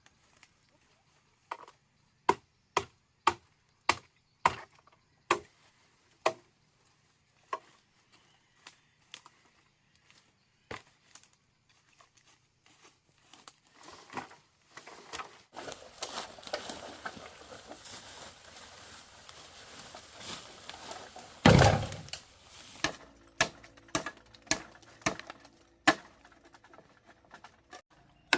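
Bamboo being chopped with a blade: sharp, separate strikes, about two a second through the first seven seconds, then sparser. Past the middle comes a stretch of rustling with one loud, heavy crash, then the strikes start again.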